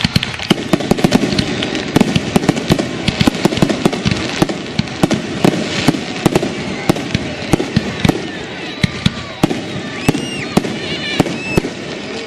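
Fireworks going off in a dense run of cracks and bangs, several a second. Near the end, high whistles slide up and down in pitch over the bangs.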